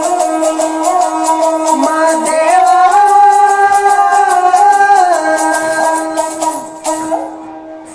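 Folk song: a voice holding long sung notes that rise in pitch about two seconds in, over a fast, even jingling percussion beat. The percussion and singing fade out near the end.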